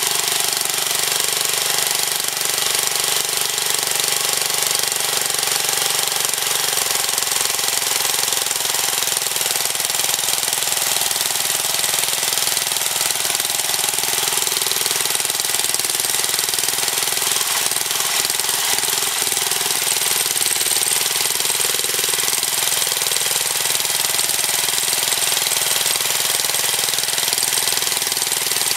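Briggs & Stratton 8 hp single-cylinder engine running steadily, belt-driving an alternator that is powering two lights.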